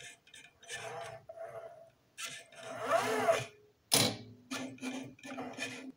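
An X-Y pen plotter's arm and pen carriage moving back and forth, driven by LFO signals, with short scraping and clicking runs. About three seconds in, its drive whines up and then back down in pitch. A sharp knock follows about a second later.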